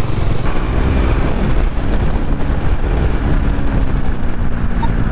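Bajaj Dominar 400's single-cylinder engine running steadily at road speed, with wind rushing over the on-bike microphone.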